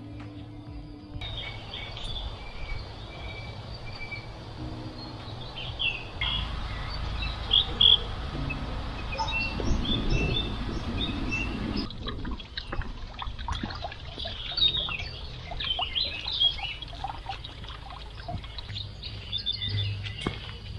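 Wild birds singing and chirping in woodland, many short calls throughout. A low rumbling noise runs for several seconds in the middle, and footsteps on the path can be heard in the later part.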